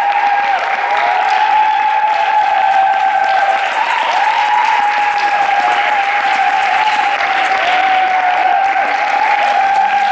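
Audience applauding after a rock song ends, with a held whine throughout that bends down in pitch now and then.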